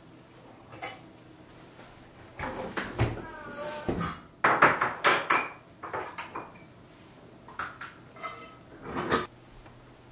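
Kitchen dishes and utensils clinking and clattering: a run of separate knocks and clinks, some ringing briefly, loudest around the middle.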